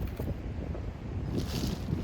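Outdoor ambience of wind buffeting the microphone, a rough, fluttering low rumble, over the flow of a river. About one and a half seconds in, a short rise in hiss rides on top.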